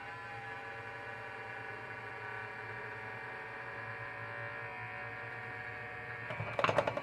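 Kobalt lawn mower battery charger's cooling fan motor running with a steady electric whine over a low hum. The charger has started making grinding noises, which the owner thinks may just be dirt in the fan. Near the end comes a burst of loud rattling clicks.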